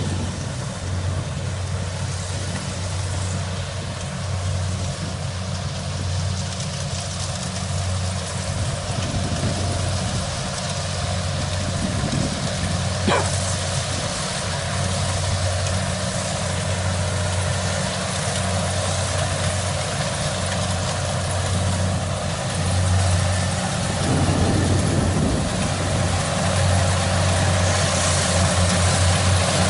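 Kubota DC70 Plus combine harvester running steadily, a low diesel engine hum with a constant mechanical rush over it, and a single sharp click about halfway through.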